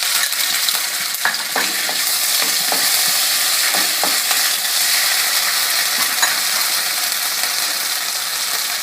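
Ginger-garlic paste sizzling in hot oil in a pan, with a spatula stirring and scraping it now and then.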